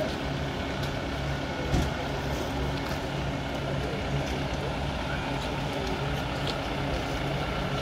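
A vehicle engine idling: a steady low drone, with a faint steady high tone above it.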